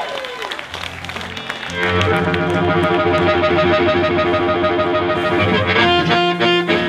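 Live blues band starting a tune. About two seconds in, an amplified harmonica, cupped against a microphone, comes in with a loud held chord over electric guitar. Sharper hits and a change of chord come near the end.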